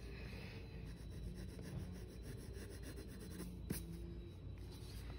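Pencil sketching on sketchbook paper: faint scratching and rubbing strokes over a low steady room hum, with one light tap a little past halfway.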